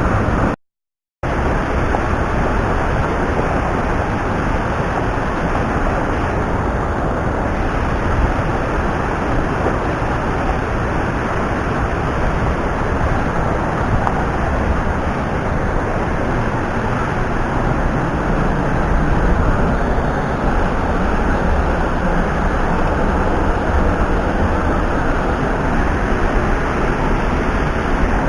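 Mountain stream water rushing steadily, a constant even noise, cut off for a moment about half a second in.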